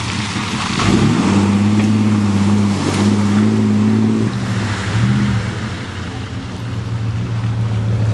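Dodge pickup truck engine revving up about a second in and held under load, easing off and rising again briefly near five seconds, then running steadier, with tyres churning through mud and water.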